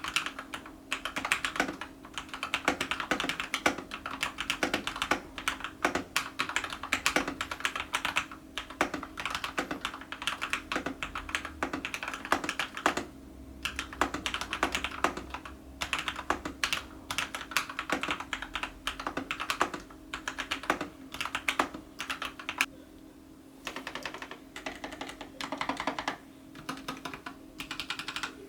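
Typing on a Corsair K70 MK1 mechanical keyboard fitted with lubed Akko CS Starfish switches and PBT keycaps: a fast, continuous stream of keystrokes with brief pauses about halfway through and again later, over a faint steady hum.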